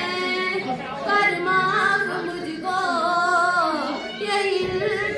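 A girl singing solo, in long held notes whose pitch bends and wavers, with short breaks between phrases.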